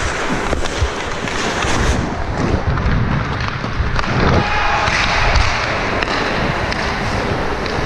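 Ice skates scraping and carving across rink ice, heard from a body-worn camera, with wind rumbling on the microphone in surges and a few short knocks of stick and puck.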